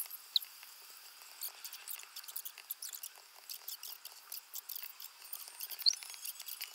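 Stylus tip tapping and stroking on a tablet's glass screen while drawing: irregular light clicks, with two brief high chirps, one about half a second in and one near the end.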